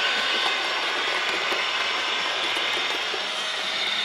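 OO gauge model train running past: the coaches' wheels rolling over the track with a steady whirring hiss and a faint motor whine, and a low hum joining about three seconds in.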